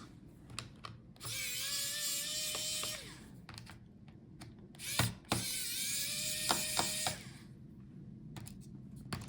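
Small electric screwdriver running twice, about two seconds each time, backing out the screws that hold a laptop battery, with light clicks and taps of the tool and screws between runs.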